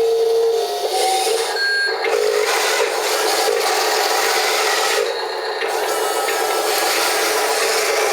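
Wheel loader at work reshaping a dirt slope: a steady mechanical whine from small motors with scraping and rasping of soil under the bucket.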